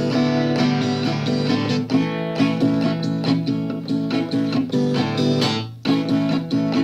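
Guitar strumming chords in an instrumental passage of a song, with no singing, and a brief dip shortly before the end.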